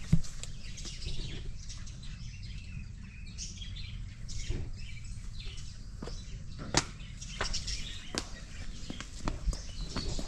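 Birds chirping in many short, high calls, with a few sharp clicks standing out over a steady low rumble.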